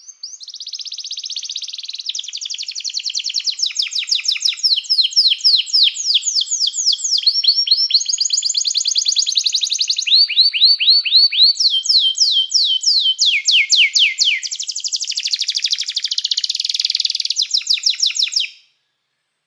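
Domestic canary singing a long song of rapid trills, switching to a new trill every second or two and stopping shortly before the end.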